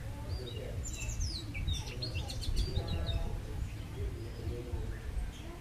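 Several small birds chirping and calling over one another in quick, short notes, over a steady low rumble.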